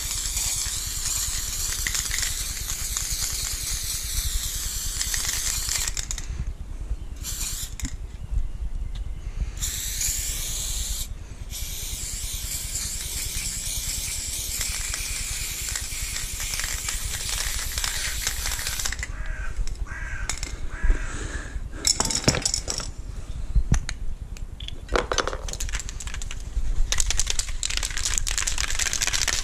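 Aerosol spray paint can hissing in long sprays with short breaks between them. In the second half the hiss stops for stretches and sharp clicking and rattling take its place.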